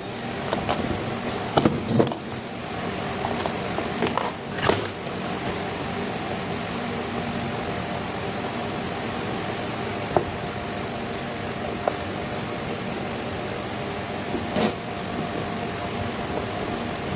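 A few scattered clicks and knocks of screws being fitted and tightened into an electric kettle's plastic housing, over a steady fan-like hum.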